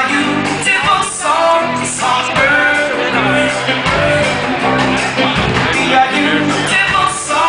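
Live rock band playing an instrumental passage of a song: drums, bass, electric guitar, keyboards and viola together.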